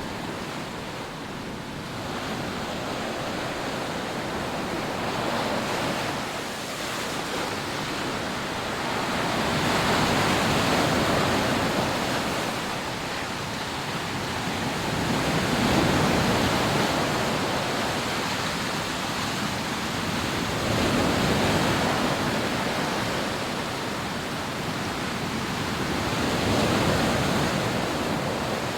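Rough sea surf breaking on a sandy beach: a steady rushing that swells into louder surges every five or six seconds as waves break and wash up the sand.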